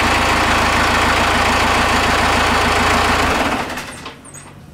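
Cummins 4BT four-cylinder turbo diesel idling steadily, then switched off a little over three seconds in and dying away quickly. It was run only to raise the system voltage for the accessory controller's first start-up.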